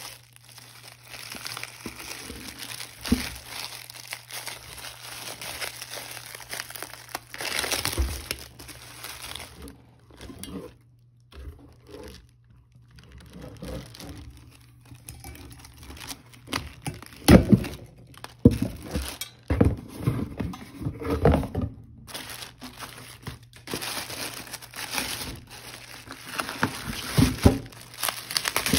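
Plastic bubble wrap crinkling and crackling as it is handled and pulled away from a cast iron sign in a cardboard box. It dies down briefly about ten seconds in, then comes back louder with a few knocks.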